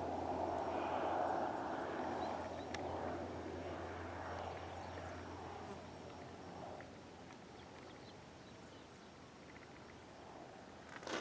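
Agricultural spray plane flying past, its engine drone fading away over the first few seconds until only faint background remains. A short sudden noise near the end.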